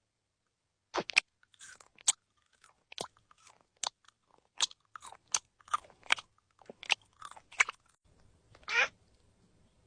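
Crisp, crunchy bites and chewing of fruit, a quick run of sharp crunches about every half second, with a brief drawn-out vocal sound near the end.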